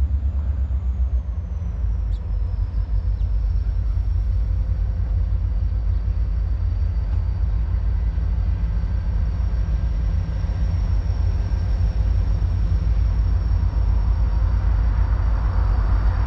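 Low, steady rumble with a faint engine hum from an approaching diesel freight train, still distant. A rushing noise grows over the last couple of seconds.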